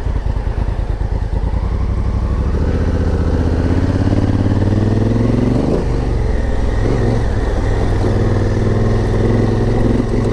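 Honda Africa Twin's parallel-twin engine under way up a rough dirt track. The revs climb over a few seconds, drop back about six seconds in, then rise and fall again with the throttle.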